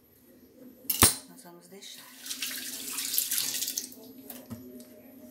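A sharp knock about a second in, then a kitchen tap running water for about two seconds before it is shut off.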